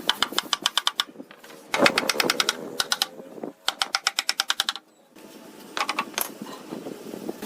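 Rapid, even hammering on wood from a power tool, about ten sharp taps a second, in short bursts with brief pauses between.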